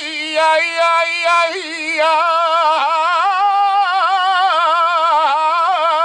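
A saeta sung solo: one unaccompanied voice holds long high notes with a strong, quick vibrato and winds through flamenco melismas in the middle of the phrase.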